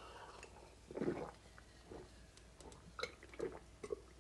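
Faint gulping and swallowing of a man drinking beer from a pint glass: a few soft swallows spaced irregularly through the quiet.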